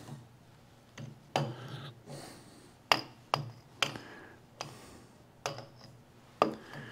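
Hand tools tapping and scraping on metal in irregular sharp clicks, about eight over several seconds, while corroded battery debris is worked out of an old Mag-Lite flashlight.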